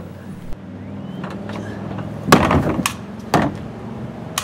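Four sharp knocks or thumps, the first about two seconds in and the loudest, over a steady low hum like a car engine running.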